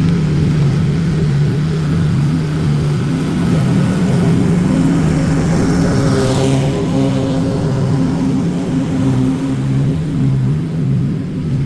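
Small petrol engine of lawn equipment running steadily at working speed, with a brief rising hiss about six seconds in.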